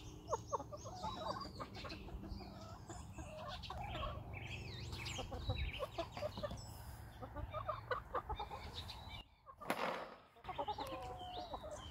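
Chickens clucking: a scatter of short calls one after another, with higher chirps among them.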